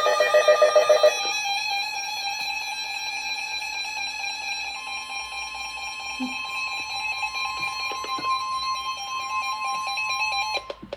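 Emergency Alert System tones announcing a severe thunderstorm warning. The warbling header data bursts end about a second in, followed by a steady alert tone; a second, higher tone joins about halfway through, and the tones stop abruptly just before the end.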